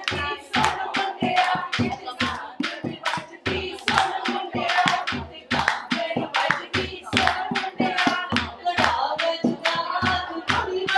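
A group of women singing Punjabi wedding folk songs together, keeping time with hand claps and a dholki hand drum played in a steady beat of about three to four strokes a second.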